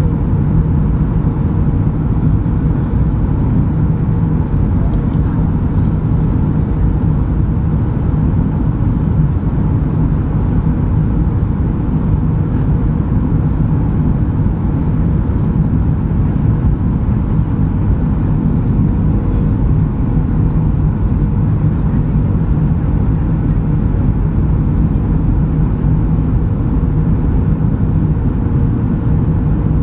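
Steady cabin noise inside a Boeing 737-800 in flight on approach: a low, even rumble of airflow and its CFM56 jet engines, with a faint steady hum on top.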